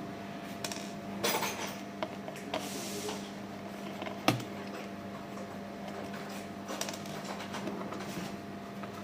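Small hand screwdriver clicking and scraping on the screws of a touch-panel circuit board in a plastic printer housing, with one sharper click about four seconds in, over a steady low hum.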